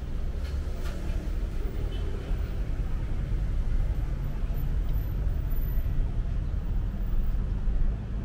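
Steady low rumble of a Saen Saep canal express boat's engine running under way, with a couple of faint clicks in the first second.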